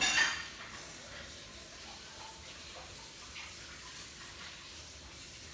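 A short metallic clink with a brief ring right at the start, then low steady hiss with a few faint light ticks of handling.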